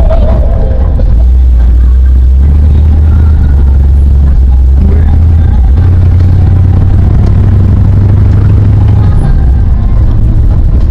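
Large-displacement engine of a 1952 car running loud and low under way, heard from inside the cabin. Its deep drone steps up in pitch twice, then eases off near the end.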